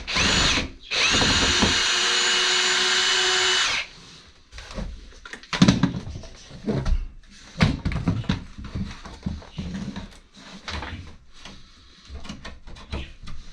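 Electric wood router running: a high steady whine that stops briefly just after the start, spins up again about a second in and runs until nearly four seconds in before switching off. Irregular knocks and scrapes of the tool being handled on the wooden ledge follow.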